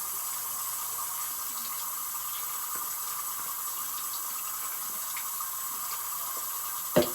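Water running steadily from a sink tap for face washing, with a brief knock near the end.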